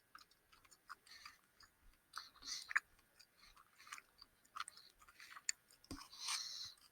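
A person chewing a tough, very gummy piece of gummy candy with the mouth close to the mic, heard as faint, irregular mouth clicks and small wet noises.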